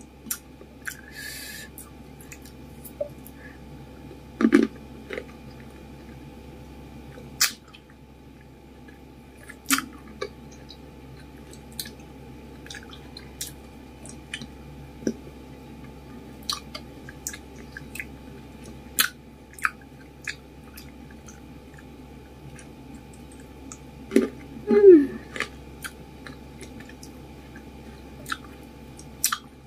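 Close-miked chewing of green grapes, with many sharp, wet mouth clicks and snaps scattered irregularly. Two brief voiced sounds come from the eater, about four seconds in and near the end.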